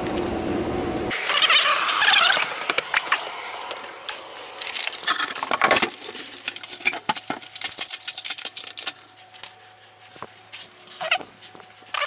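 A steady noise stops abruptly about a second in. Then come irregular rustling, clicks and knocks of a person climbing down a folding attic ladder and walking across the floor, picked up close by a head-mounted camera.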